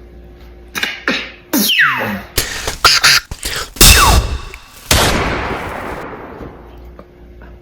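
Beatboxer making sound effects with the mouth: a quick string of sharp clicks and pops with two falling whistle-like glides, then a loud burst about five seconds in that fades away over a couple of seconds.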